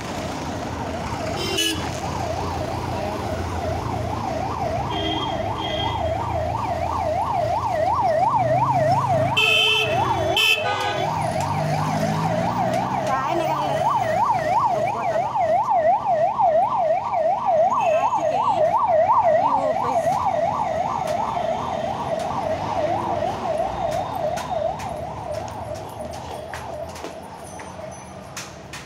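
An emergency vehicle's siren wailing rapidly up and down, about three sweeps a second, over street traffic. It grows louder, then fades away near the end.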